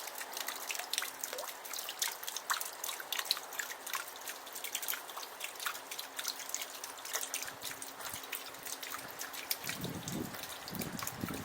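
Water trickling and spattering from a bamboo waterfall cascade into a pond: a dense, irregular patter of drips and splashes, with a faint steady hum under it. Near the end, lower gurgling sounds join in.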